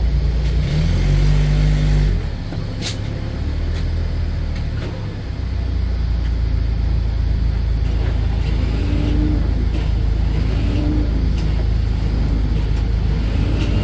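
Heavy truck engine running steadily with a deep rumble; its note changes about a second in and it eases off for a few seconds before settling back to a steady run.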